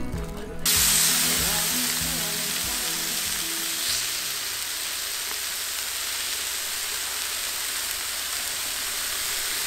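Meat sizzling as it grills, a steady hiss that starts suddenly about a second in. Background music fades out in the first few seconds.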